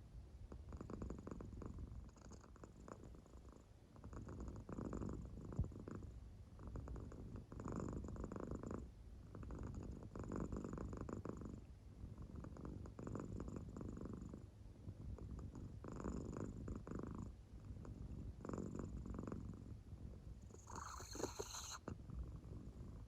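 An American Shorthair cat purring faintly in deep sleep, the purr swelling and fading with each breath about every two to three seconds. One breath near the end comes out sharper and hissier.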